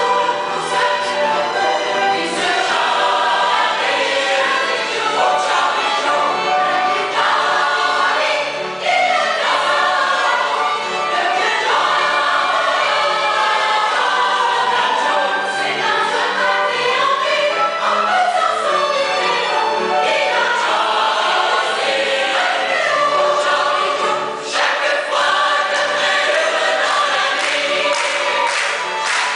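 Large mixed choir of women's and men's voices singing together, with two brief pauses between phrases.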